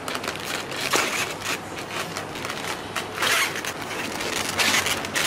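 Rustling, crinkling and scraping of a woven plastic sack and styrofoam food boxes as the boxes are pulled out and handed over, in irregular bursts with small clicks. The loudest rustles come about three and a half seconds in and near the end.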